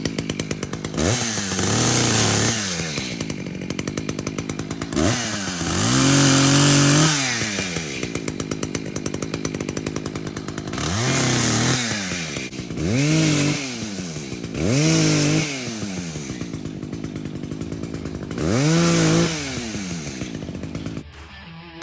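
Echo CS600P two-stroke chainsaw idling unevenly and being revved in about six short throttle blips, pitch rising and falling each time, while it warms up just after a cold start and coming off choke. The engine sound cuts off near the end.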